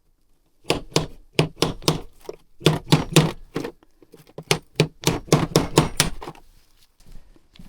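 Metal hammer taps in a quick run, about three or four a second for some five seconds, knocking worn rollers out of an ATV's CVT variator.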